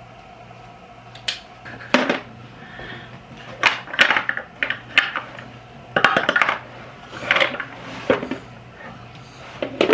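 Irregular clinks and knocks of hard objects being handled, about a dozen over several seconds, over a low steady hum.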